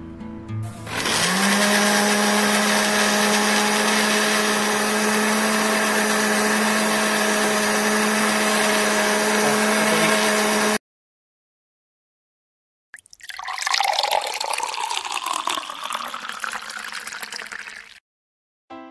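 Countertop electric blender starts about a second in and runs at a steady pitch, blending creamed corn with condensed milk and water, then cuts off abruptly. After a short silence, the blended corn drink is poured from a jug into a glass of ice for several seconds.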